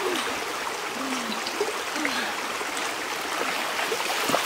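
Shallow stream running steadily over rocks, with water splashing as a person wades through it near the end.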